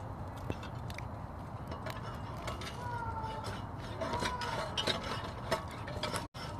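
Outdoor background noise with faint distant voices, a few light clicks and brief squeaky tones.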